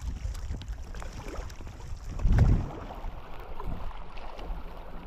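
Water splashing and moving around a paddled packraft in a current, with wind rumbling on the microphone and scattered small splashes. A louder low thump comes about halfway through.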